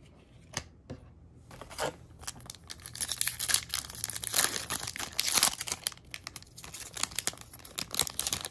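Foil wrapper of a Yu-Gi-Oh! booster pack being torn open by hand: a few light clicks, then several seconds of dense crinkling and tearing.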